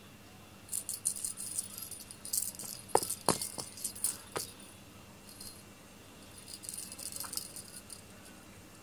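Small bell on a feather wand cat toy jingling in short bursts as the toy is flicked and dragged across the floor, with a few light taps.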